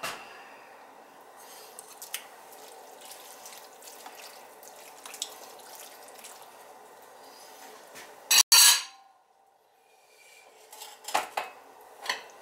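Light clinks and scraping of a ceramic bowl and food being spread by hand in a large enamel roasting pan, with one loud, short clatter of dishes about eight and a half seconds in.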